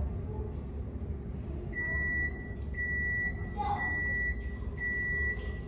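A kitchen appliance's electronic beeper sounding four times, about once a second, each beep a steady high tone lasting about half a second, over a steady low rumble.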